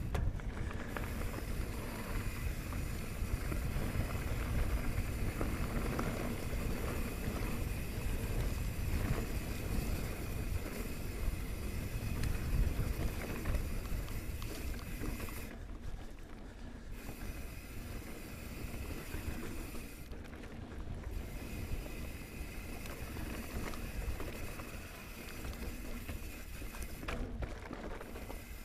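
Mountain bike riding a dry dirt singletrack: tyres rolling and the bike rattling over the ground, with wind rushing over the microphone. Louder in the first half.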